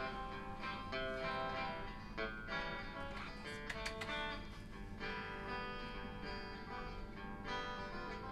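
Guitar strumming chords at a moderate level: the instrumental intro to a song, before any singing.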